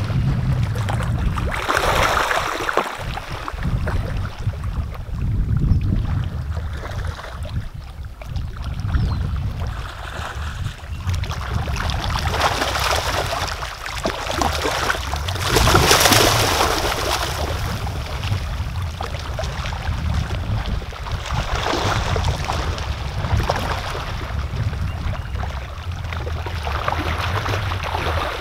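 Wind buffeting the microphone with a steady low rumble. Over it come several short bouts of splashing from common carp thrashing as they spawn in flooded shallows.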